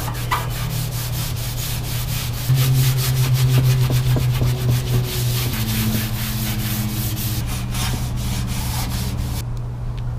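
A red abrasive scuff pad scrubbed rapidly back and forth over the old black paint of a metal car interior trim panel, scuffing it to key the surface for new paint; the scrubbing stops about nine seconds in. A steady low hum runs underneath.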